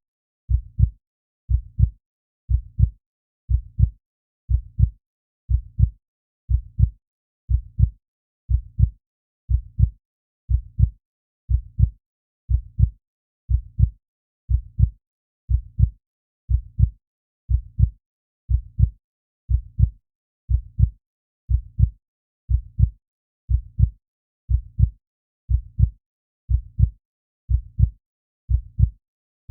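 Slow, steady heartbeat: a low double thump repeating about once a second.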